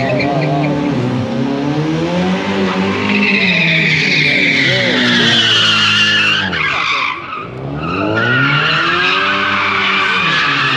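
Drift car engine revving up and down hard while its tyres squeal in a slide, with a brief lull about seven seconds in before the revving and squealing pick up again.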